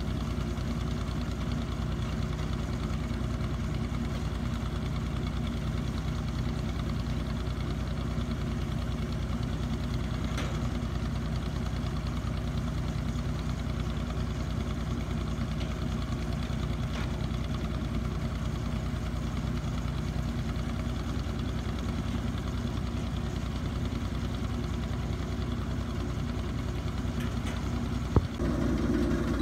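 Engine of a tractor-mounted tube-well boring rig running steadily at an even speed as it drives the drilling. A single sharp knock comes near the end, after which the drone gets louder.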